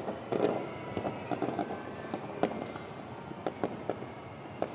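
Fireworks going off: a dense burst of crackling pops about half a second in, followed by irregular single sharp bangs.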